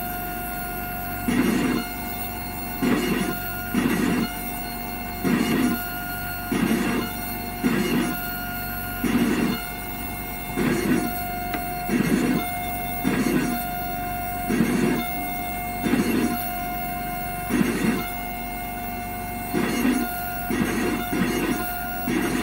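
Sirona CEREC MC XL dental milling unit milling a ceramic block: a steady high motor whine, with louder grinding passes coming back about every second and a half.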